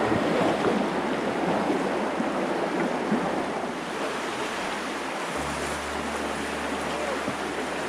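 The Virgin River's water running and splashing, a steady rushing noise, with some wind on the microphone.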